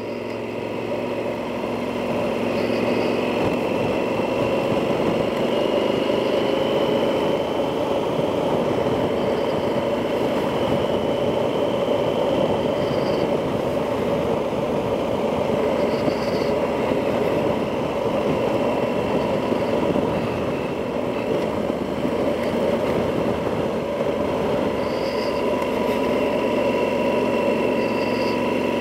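Yamaha XT1200Z Super Tenere's parallel-twin engine running on the move, over a steady rush of wind noise, picked up by a microphone inside the rider's helmet. The engine note and loudness rise over the first few seconds as the bike pulls away, then hold steady.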